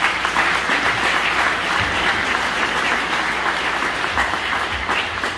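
Audience applauding, a dense run of clapping that starts suddenly and fades near the end.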